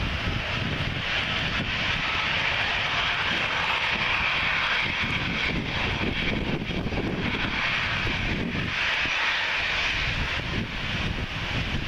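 Airbus A320's jet engines running at low taxi power as the airliner lines up for take-off: a steady jet hiss over a low rumble. Wind buffets the microphone.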